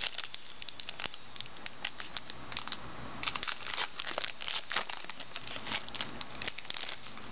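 Foil trading-card pack wrapper being torn open and crinkled by hand, an uneven run of sharp crackles and rustles, busiest in the middle.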